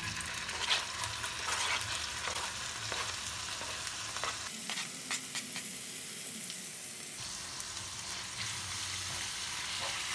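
Diced raw chicken breast sizzling in a frying pan of hot melted butter as it is scraped in, a steady hiss with a few short clicks from the knife pushing the pieces off the cutting board.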